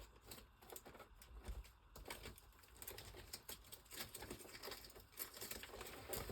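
Faint, irregular clicks and rustles of paper cutouts and plastic CD sleeves being handled and sorted through.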